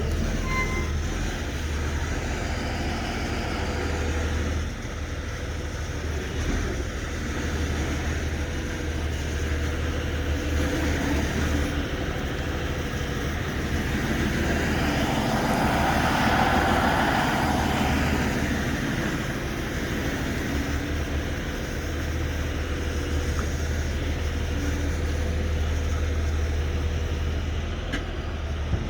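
Heavy rotator tow truck's diesel engine running steadily with a low rumble, growing louder for a few seconds around the middle, as when it is revved under hydraulic load.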